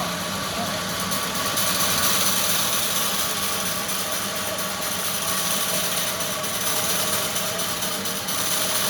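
Sawmill machinery running steadily, a continuous mechanical hum and hiss without pauses or impacts.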